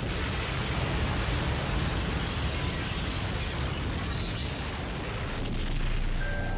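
Staged car-bomb explosion from a film soundtrack: a sudden blast, then a long, heavy rumble that runs on for several seconds. Chiming mallet notes come in near the end.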